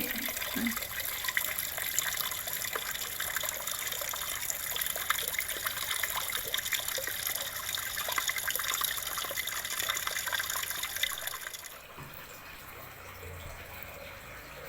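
Water running and splashing with many small irregular splashes, as from a tap. It stops suddenly near the end, leaving a faint low hum.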